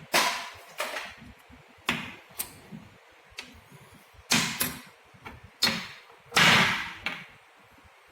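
Irregular sharp knocks and clacks of small metal injector parts and tools being handled and set down, about eight in all. The longest and loudest comes about six and a half seconds in.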